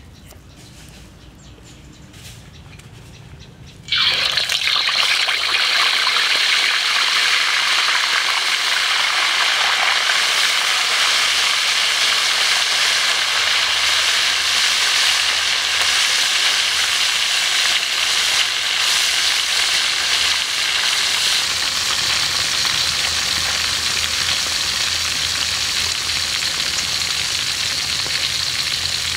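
Two whole scored catfish deep-frying in hot oil in a wok. The sizzle starts suddenly about four seconds in, as the fish go into the oil, then runs loud and steady, easing a little later on.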